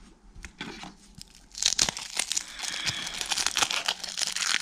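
Foil wrapper of a 1991 Pacific football card pack being torn open: a few soft clicks, then from about a second and a half in, loud crinkling and tearing of the foil.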